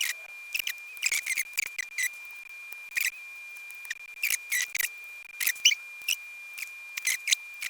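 Lock pick and tension wrench working the pins inside a pin-tumbler lock: irregular light metallic clicks and scratches in quick clusters, behind a steady faint high-pitched whine.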